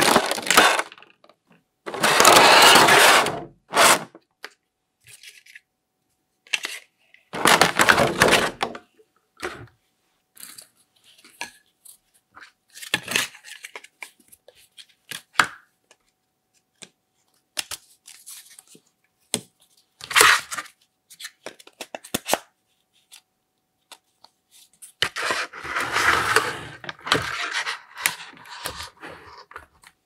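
Cardboard box and plastic toy parts being handled: several bursts of scraping and rustling, with scattered plastic clicks and knocks as a toy vacuum cleaner's hose and wand are pulled out and fitted together.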